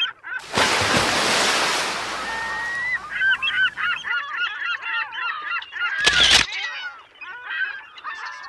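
A flock of waterfowl honking, many short calls overlapping, after a loud rush of noise in the first few seconds. A brief burst of noise cuts across the calls about six seconds in.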